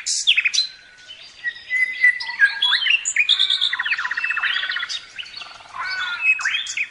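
Several birds chirping and calling at once, a busy mix of quick down-slurred notes and rapid trills.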